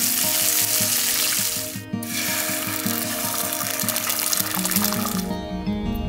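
Bacon sizzling in a frying pan, an even frying hiss that breaks off briefly about two seconds in and stops near the end. Background music plays underneath.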